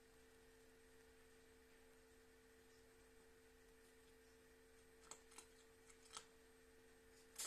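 Near silence: room tone with a steady faint hum, broken by a handful of faint short clicks in the last few seconds.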